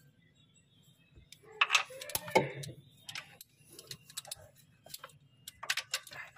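Socket ratchet with an extension clicking and clanking in short irregular runs against metal, while the thermostat housing bolts are worked loose to drain the engine coolant.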